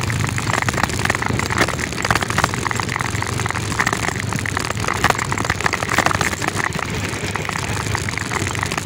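Motorcycle engine running steadily while riding a rough, rutted dirt trail, with a constant clatter of small knocks and rattles from the bumps.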